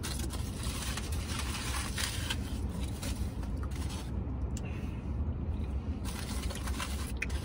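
Aluminium foil taco wrapper crinkling and rustling as it is unwrapped and handled, mostly in the first couple of seconds and again near the end, over a steady low hum.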